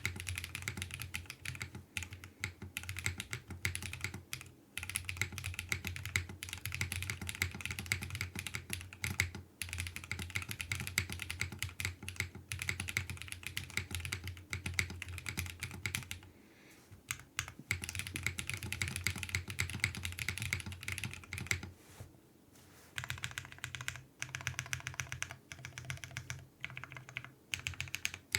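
Brutal60 60% mechanical keyboard with lubed Holy Panda tactile switches on an FR4 plate and GMK keycaps being typed on in a fast, continuous run of keystrokes. There are two brief pauses, about two-thirds and four-fifths of the way through.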